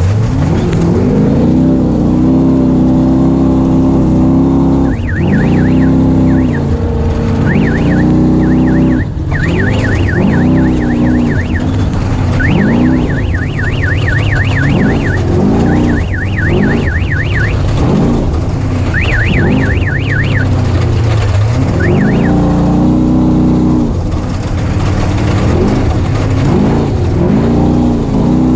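Off-road race vehicle's engine recorded on board, its revs climbing and dropping again and again as it accelerates and shifts. A rapid, high warbling electronic alarm sounds in several bursts through the middle.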